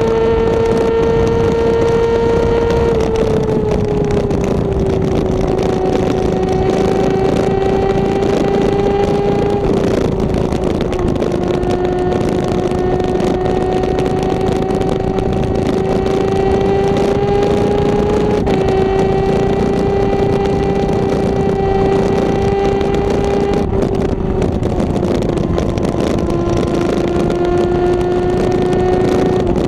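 Honda CBR600RR inline-four with a Two Brothers aftermarket exhaust running at a steady cruise. Its engine note holds near one pitch, dipping a few times, under constant wind rush on the microphone.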